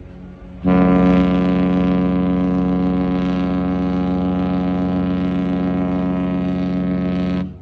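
A single long horn blast at one steady deep pitch, starting about half a second in, held unchanged for about seven seconds and cutting off near the end.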